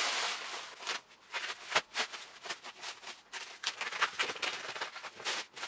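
Plastic stretch wrap crinkling and crackling as it is pulled and torn off a cardboard box, in irregular rustles with one sharper click a little under two seconds in.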